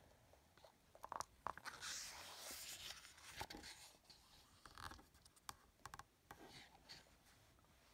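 Faint rustle and slide of a picture book's paper page being turned, about two seconds in, with scattered small clicks and crinkles of paper and handling before and after.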